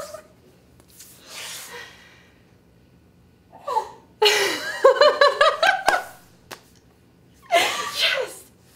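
A woman laughing in wordless bursts. A breathy exhale comes about a second in, then a long run of rapid, high laughter in the middle, the loudest part, and another laugh near the end.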